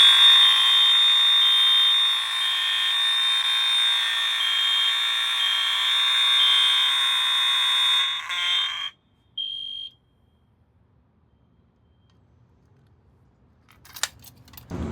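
Simplex fire alarm sounding: a loud, steady, buzzy high-pitched tone with a second beep pulsing irregularly over it, cutting off suddenly about nine seconds in. One short beep follows a second later, then near silence.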